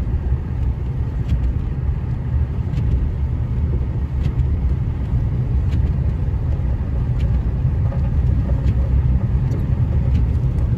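Steady low rumble of a vehicle's engine and tyres driving on a snow-covered road, heard from inside the cabin. A faint tick comes about every second and a half.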